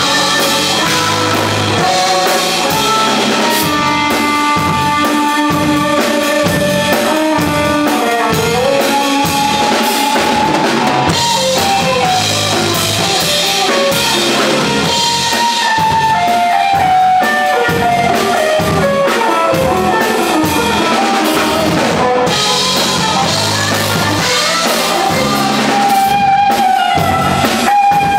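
Jazz-fusion trio playing live: an electric guitar plays a gliding lead line over a drum kit and electric bass.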